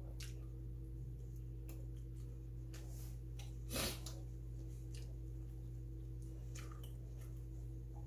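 Steady low electrical hum under scattered soft clicks and mouth sounds of someone eating bungeoppang, with one louder brief noise about four seconds in.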